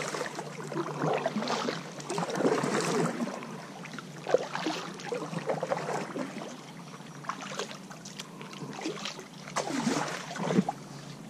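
Kayak paddle strokes: the blade dipping into calm river water and swishing through it in irregular splashes.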